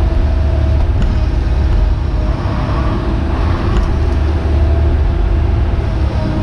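Hitachi Zaxis 130 excavator's diesel engine running steadily under hydraulic load as the boom and arm are worked, heard from inside the cab, with a steady whine over a low drone.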